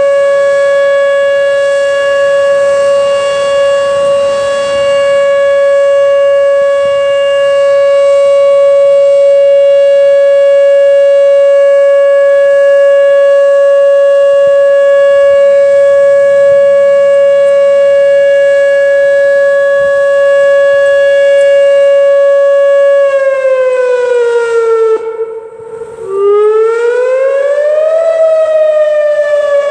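Whelen outdoor tornado warning siren sounding a loud, steady Alert tone for its test. About three quarters of the way in, the pitch slides down and nearly cuts out, then rises and falls again as the Wail tone starts.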